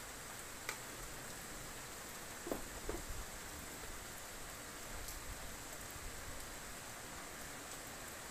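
Light rain falling: a steady soft hiss, with a few separate drops ticking on nearby surfaces, the clearest around two and a half to three seconds in.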